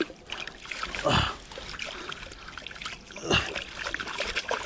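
Water splashing and trickling as a freshly caught bass is rinsed clean in the dam by hand, with two louder splashes, about a second in and just past three seconds.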